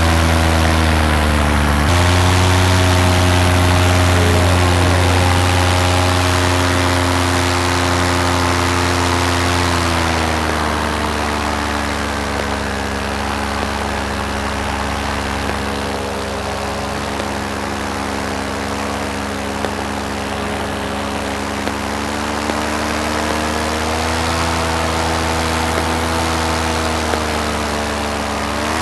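Paramotor engine and propeller running steadily in flight, throttled back about ten seconds in so the pitch drops, then eased up again near the end.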